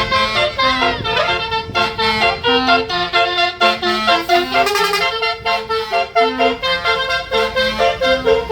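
Tourist bus's telolet basuri horn, a set of multi-tone air horns, playing a quick melody of short stepped notes, several pitches sounding at once.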